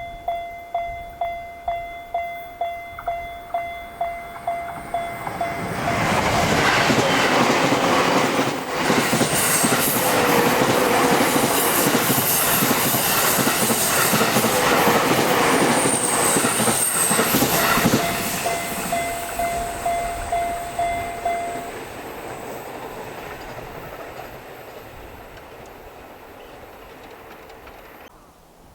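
Japanese level-crossing alarm ringing its electronic 'kan-kan' bell, about three strikes a second. About six seconds in, an electric train passes loudly for some twelve seconds with clattering wheels, drowning out the bell. The bell is heard again as the train moves off, stops about three-quarters of the way through, and the train's sound fades away.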